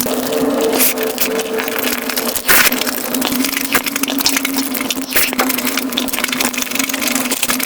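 Sped-up crunchy chewing and eating sounds: a dense, rapid crackle of crunches and snaps over a steady hum.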